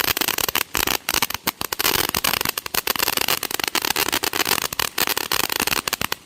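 Consumer fireworks going off in a fast, irregular string of sharp cracks and pops over a continuous crackle, several a second, which cuts off suddenly near the end.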